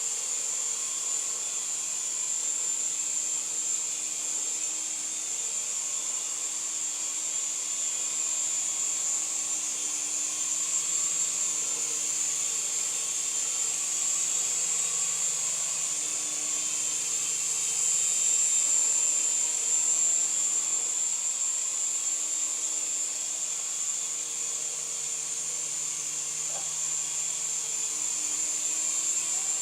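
Syma S107G mini coaxial RC helicopter in flight: a steady high whine from its small electric motors over a soft hum of the spinning rotors. The sound swells slightly a little past halfway.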